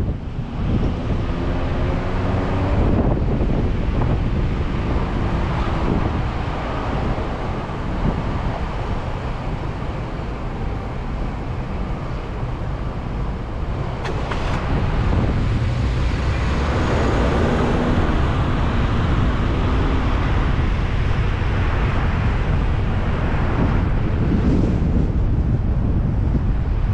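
Car on the move: steady road rumble with wind buffeting the microphone. A faint engine hum rises near the start and again about two-thirds of the way through.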